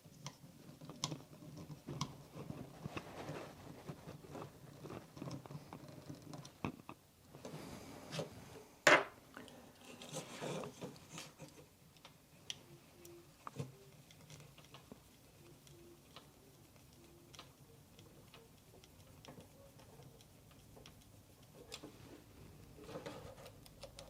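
Close-up handling of small plastic parts and a screwdriver: scattered clicks, taps and scrapes as a small screw is worked into the Ebo robot's motor, whose thread looks stripped so the screw won't go in. One sharp click about nine seconds in is the loudest sound.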